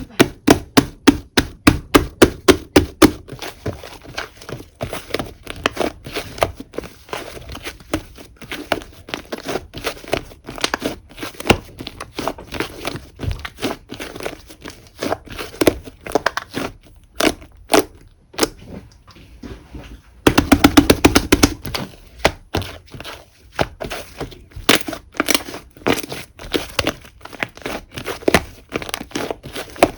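Whipped-cream slime being squished and poked by hand: a quick run of sticky clicks and pops. It is loudest in the first few seconds and again about twenty seconds in.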